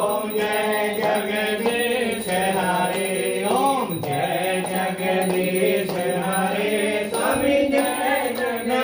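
A priest chanting Hindu puja mantras in one continuous sing-song voice, the pitch rising and falling from phrase to phrase.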